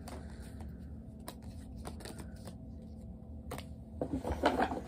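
Baseball cards being thumbed through by hand: scattered soft clicks and flicks as cards slide past each other, with a louder burst of handling and rustling about four seconds in.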